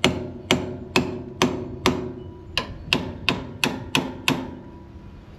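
Hammer blows on a tie rod end separator fork (pickle fork) driven in to pop a stuck tie rod end, steady strikes about two a second with a short metallic ring after each. The joint does not yet let go, and the blows stop a little over four seconds in.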